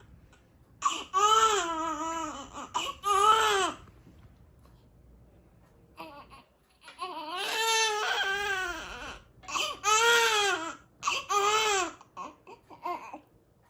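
A baby crying in loud bursts, each cry arching up and down in pitch, with a pause of a couple of seconds in the middle and a trail of shorter, fainter sounds near the end.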